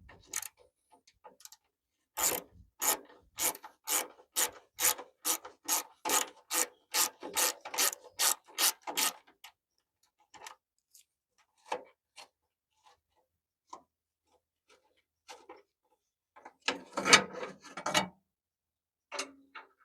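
A hand tool worked in fast, even back-and-forth strokes, about two and a half a second, rasping and clicking on the hood-latch hardware of a 1956 Ford truck as the last fastener is worked loose. It stops, a few scattered clicks follow, and there is a louder metallic clatter near the end.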